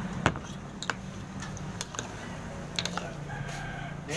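Ceramic soup bowl set down on a table with a sharp knock, followed by light clinks of a spoon and fork against the bowl.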